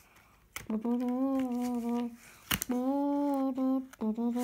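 A child humming a tune in three long held notes, each about a second, with a sharp click between the second and third.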